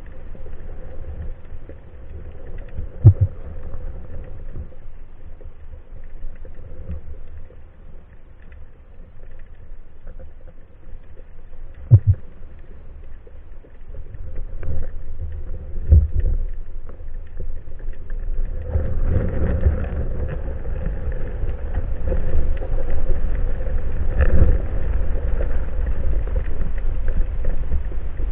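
Underwater ambience heard through a camera's waterproof housing: a low rumble with a few sharp knocks. Two-thirds of the way through it grows louder and rougher.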